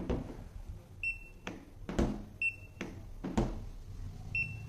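Handheld coating thickness gauge (UNI-T UT343D) beeping three short high beeps as it takes paint-thickness readings on a car's hood, with several sharp taps and clicks as its probe is set down on the paint.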